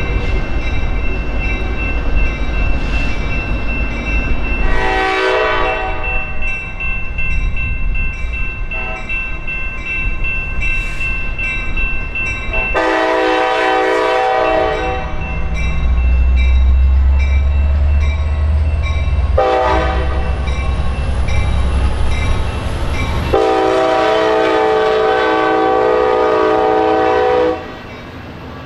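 Amtrak California diesel locomotive horn sounding the grade-crossing signal: two long blasts, a short one, then a final long blast that stops just before the end. Under it the locomotive's engine rumbles, loudest as it passes, and a crossing bell dings through the first half.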